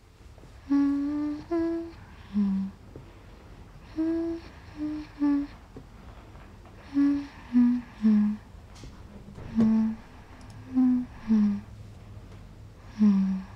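A person humming short phrases of two or three notes, repeated irregularly every few seconds, over a faint low drone.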